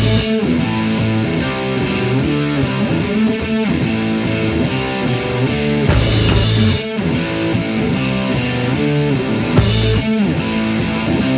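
Background rock music with distorted electric guitar, with brief cymbal-like crashes about six and ten seconds in.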